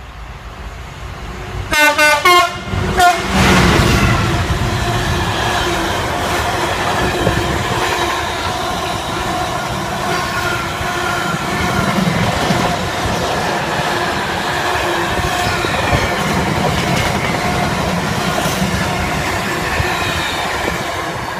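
Class 66 diesel freight locomotive sounding its horn about two seconds in, with a second short blast a second later, as it approaches and passes. Its engine passes, then a long train of container wagons rumbles and rattles steadily along the rails.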